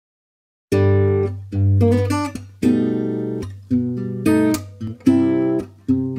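A song's intro on acoustic guitar: plucked chords, each struck sharply and left to ring, starting suddenly under a second in after silence.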